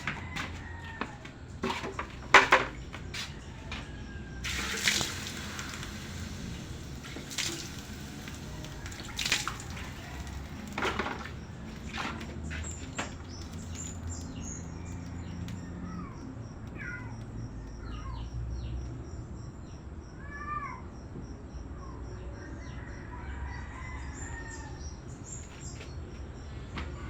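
Scattered knocks and clanks, the loudest a couple of seconds in, with a brief hiss about five seconds in. Later come short bird chirps over a rapid, steady high chirping.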